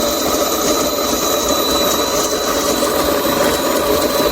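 Electric burr coffee grinder running steadily, its motor whining as the burrs grind beans with a coarse rattle.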